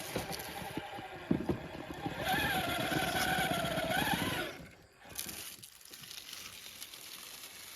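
Electric motor and drivetrain of a Redcat Vertex 6 1/6-scale RC rock crawler whining under throttle, with clicks and scraping as it works over the terrain. The whine holds steady from about two seconds in, rises briefly and cuts off after about four and a half seconds, leaving fainter scraping.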